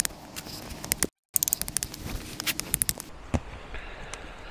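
Wood being split with a knife blade: rapid crackling clicks, then two sharp knocks near the end. The sound cuts out completely for a moment about a second in.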